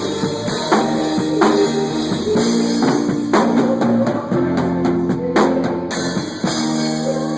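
A live band playing: a drum kit keeping a steady beat under guitar and held chords that change about once a second.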